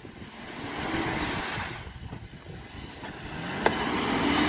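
Suzuki Grand Vitara's engine revving in two long rises and falls under heavy throttle as it pushes through deep mud and water, tyres churning and splashing. A single sharp click about three and a half seconds in.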